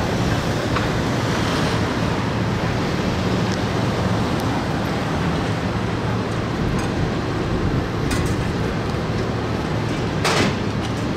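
Fire engine's diesel engine idling steadily: an even low rumble under a broad hiss. A short sharp knock comes near the end.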